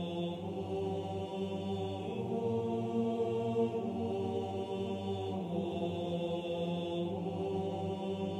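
Background music of slow vocal chant: sustained voices over a steady low drone, the held notes changing every couple of seconds.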